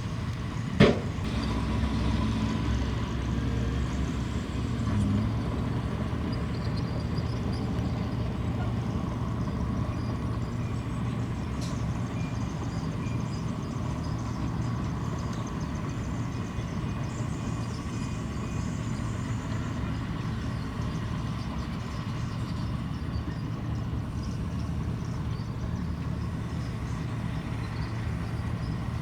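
Heavy diesel earthmoving machinery engines running steadily, with one sharp metallic clank about a second in.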